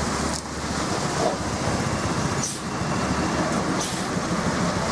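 Buses driving past with engines running and steady road noise, between telolet horn blasts.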